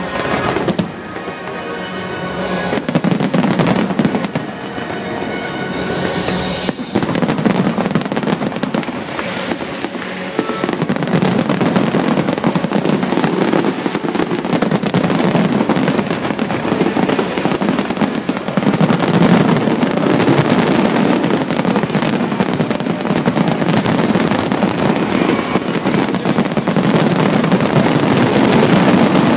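Fireworks finale: a dense, rapid barrage of bangs and crackling that thickens about seven seconds in and keeps going without a break. Music plays under the first bangs, then is drowned out.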